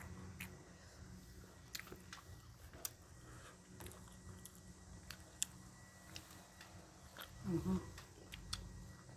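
A person chewing and biting food close to the microphone, with sparse crunchy clicks and a brief louder mouth sound about seven and a half seconds in.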